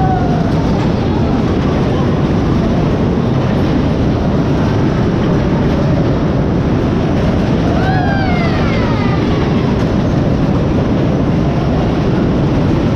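Amusement ride in motion: a loud, steady rumble of wheels and running gear. About eight seconds in comes a brief falling, wailing tone.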